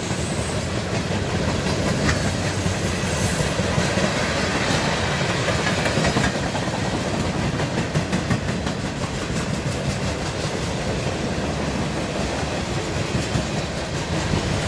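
Freight cars rolling steadily past close by: a continuous rumble of steel wheels on rail with a running clickety-clack of wheels over the rail joints.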